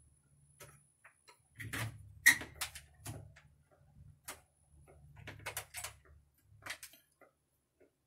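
Metal and plastic parts of an Andersen storm door handle set clicking and clacking as the handle and its plate are pushed onto the door and lined up, a scatter of sharp clicks with the loudest a little over two seconds in.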